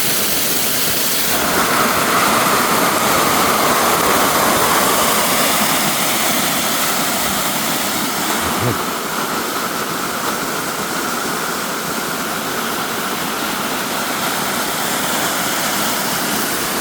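Waterfall rushing steadily, heard close up, with an even, loud spray of water noise.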